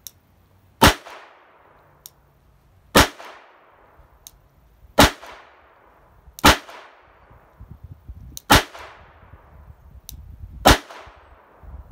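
Charter Arms Pathfinder Target .22 LR revolver fired six times in double action, one shot every one and a half to two seconds. Each shot is a sharp crack with a short fading tail.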